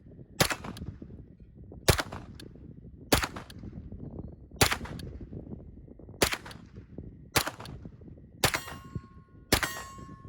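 Sig MPX Gen 2 9mm carbine with an 8-inch barrel firing single, slow, aimed shots, eight in all, about one every second and a half, each with a short echo. A steady ringing tone hangs on after the last two shots.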